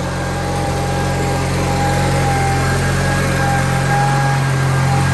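Case/Ingersoll garden tractor engine running steadily as the tractor drives in, growing a little louder as it comes closer.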